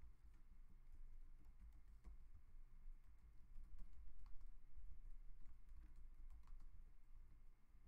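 Faint, irregular key clicks of typing on a computer keyboard.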